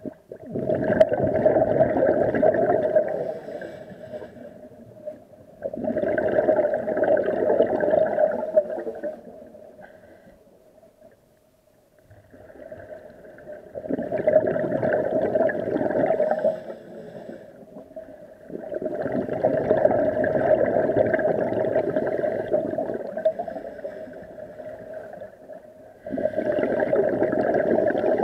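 Scuba breathing heard underwater through the camera: a regulator's exhaled bubbles gurgling in long bursts about every five or six seconds, with quieter pauses for the in-breaths and a faint steady hum beneath.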